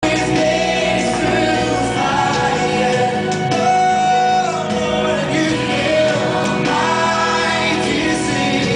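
A Christian song playing: a singing voice carrying a melody over steady instrumental backing.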